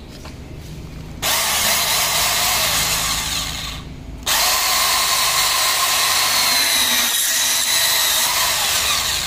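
Makita DPB181 18V cordless band saw running with a steady high whine: it starts about a second in, stops briefly near the four-second mark, then starts again and cuts into a metal tube held in a vise.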